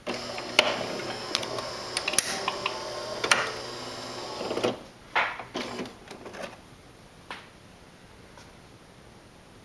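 Saeco Vienna Plus super-automatic espresso machine running a cycle: a mechanical whining, rattling noise with steady tones, part of the screeching the owner takes for a sign of a problem. It stops abruptly about four and a half seconds in, followed by a few clicks and knocks.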